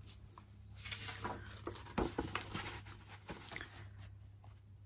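Light rustling and tapping as a cross-stitch kit's paper sheets and a floss card wound with embroidery thread are handled, busiest in the middle, with a sharper knock about two seconds in.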